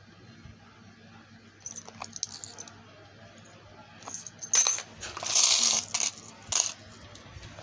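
Small gold-tone metal charms and coin pendants clinking together as a hand handles and stirs them in an organiser box: a few light clicks about two seconds in, then a louder run of jingling from about four seconds in until near the end.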